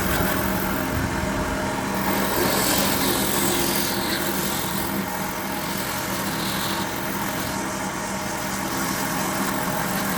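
A power tool running steadily while it works wood, a rough abrasive noise swelling and fading over its steady motor hum.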